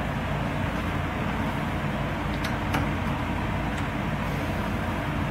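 A steady low machine hum, with a few faint light clicks around the middle.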